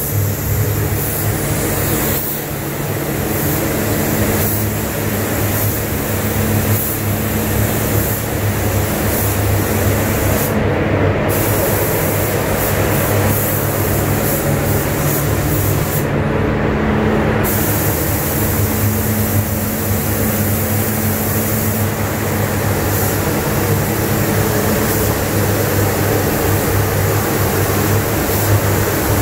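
Paint spray booth ventilation fans running: a steady rush of air over a low hum. The high hiss drops out briefly twice, once about a third of the way in and again past the middle.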